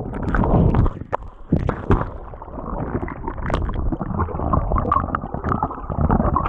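River water heard from under the surface while a whitewater kayak is capsized: a muffled churning and gurgling with bubbling and many scattered sharp knocks.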